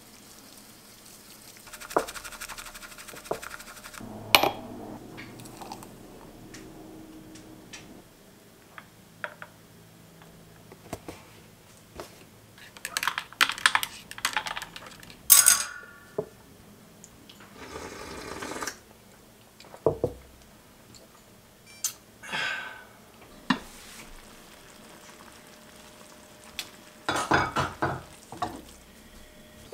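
Kitchen handling sounds: a bamboo matcha whisk brushing against a ceramic bowl, then separate clinks and scrapes of stirring and of dishes and utensils at irregular intervals, the loudest about halfway through.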